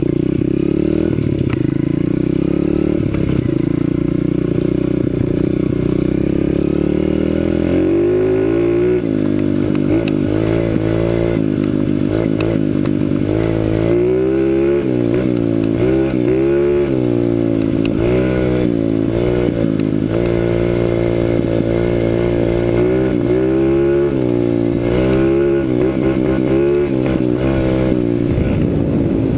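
CRZ 125 Pro pit bike's four-stroke single-cylinder engine under way, its pitch climbing and dropping again and again as the throttle is opened and closed. The sound is muffled, with little treble.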